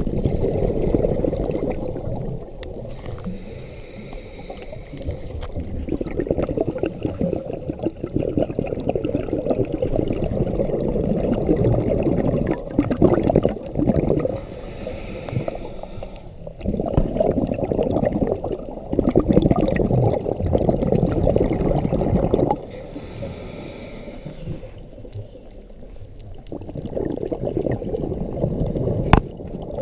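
Scuba diver breathing through a regulator underwater: long, rumbling bursts of exhaled bubbles alternate with short hissing inhalations, about three breaths in all.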